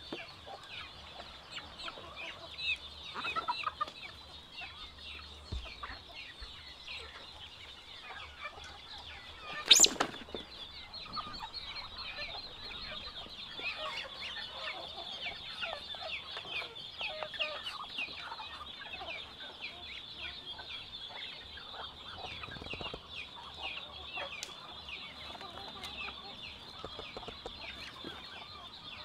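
A flock of chickens clucking and calling steadily, with one loud sharp knock about ten seconds in.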